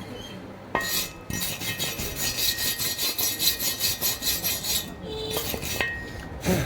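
Hand tool scraping metal in rapid, even strokes, about four a second, for several seconds, with a sharp click near the end.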